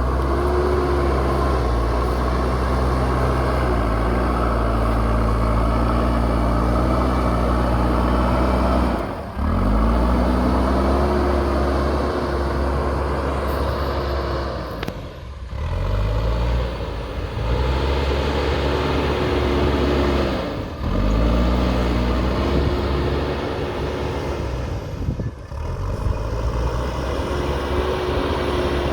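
JCB backhoe loader's diesel engine working, its pitch repeatedly rising and falling as it revs up and settles back under load. The sound drops out briefly four times.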